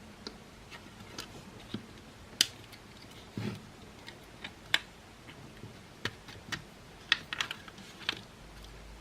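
Irregular sharp clicks and taps of hard plastic parts and tools being handled while a Makita cordless stick vacuum is disassembled, with a duller knock about three and a half seconds in.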